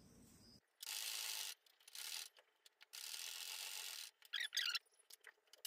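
Domestic sewing machine stitching through a thick layered sole of fabric, foam and denim, running in several short, faint spells with pauses between.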